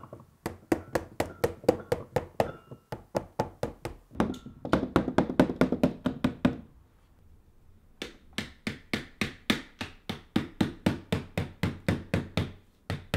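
Small hammer tapping draught-proofing brush pile carriers firmly into a sash window frame: quick, even taps about four a second, in two runs with a pause of about a second between them.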